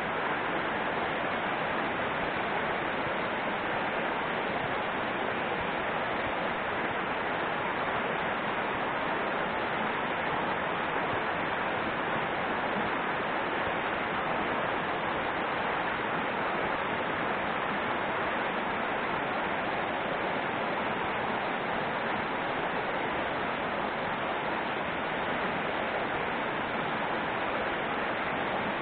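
Small mountain river rushing steadily over a rocky rapid into a pool.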